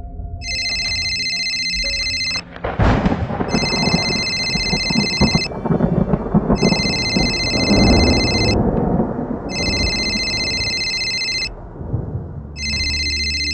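A phone ringtone ringing five times, each ring about two seconds long with about a second between, over a loud low rumble that swells about two and a half seconds in and dies away near the end.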